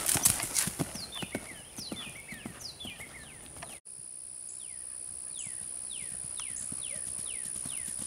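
A trotting horse's hoofbeats on grass, loudest in the first second and then fading, with repeated short falling whistles over them. After a cut just under four seconds in, a steady high-pitched drone with the falling whistles continuing.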